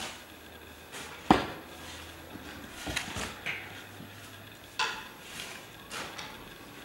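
A handful of separate knocks and clatters of objects being handled. The sharpest and loudest comes about a second in, with a small cluster near the middle and two more later.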